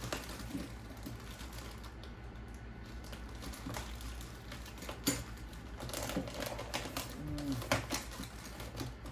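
Rummaging through a drawer of small RC car parts: loose pieces clicking and rattling irregularly, with a few sharper clicks, over a steady low hum.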